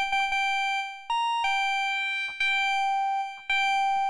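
Arturia MiniFreak synthesizer playing a single high, bright note on its Wave Shaper oscillator, re-struck several times and held, with a short jump to a higher note about a second in.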